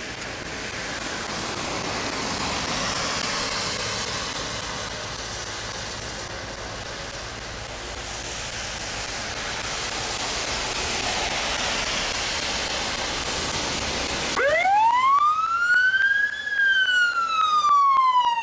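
Steady hiss of traffic on a wet road, swelling and easing as vehicles approach. About fourteen seconds in a police siren starts abruptly and is the loudest sound: one long wail rising for about two seconds and then falling.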